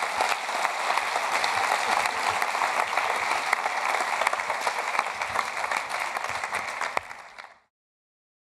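Audience applauding: many hands clapping steadily, fading out quickly about seven seconds in.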